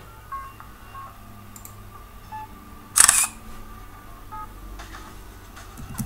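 GNOME Screenshot's camera-shutter sound effect as a screenshot of the desktop is taken: one short, sharp click about three seconds in.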